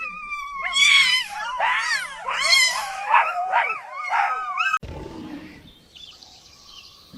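Cartoon animal sound effect: a run of shrill, wavering cries, about one a second, that cuts off abruptly a little under five seconds in, followed by a quieter low rumble that fades away.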